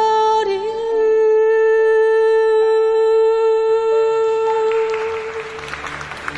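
A woman's voice holding one long, steady final note of a ballad, fading after about five seconds as audience applause begins.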